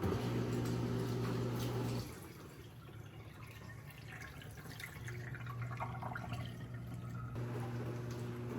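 Portable countertop dishwasher running its wash cycle: a steady pump-motor hum with water splashing and dripping inside the tub. The hum drops away about two seconds in and comes back in the second half.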